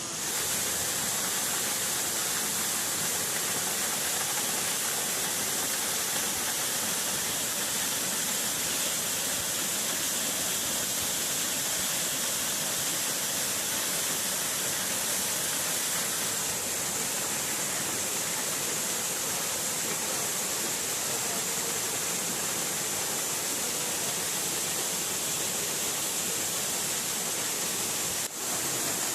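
Waterfall rushing: a steady, dense hiss of falling water, broken by a brief dip near the end.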